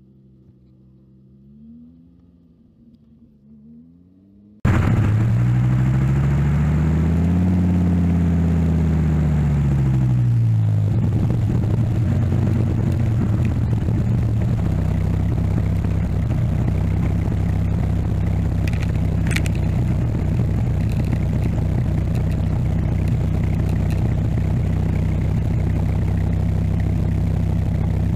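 Dodge Viper's V10 engine driving. Faint revs at first, then about five seconds in it turns suddenly loud as the car accelerates, its pitch rising and then falling back. After that it settles into a steady drone at cruising speed.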